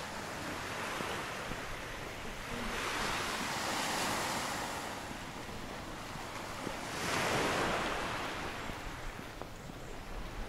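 Sea waves breaking on the shore: a steady wash of surf with two swells that rise and fade, the first about three seconds in and the second about seven seconds in.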